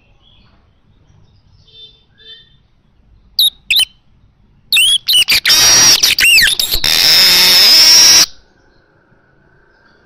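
Caged male manyar (weaver) singing close up: a few faint chirps, two sharp calls, then a loud run of sweeping notes about halfway through that ends in a long, harsh buzzy wheeze, cut off a little after the eighth second.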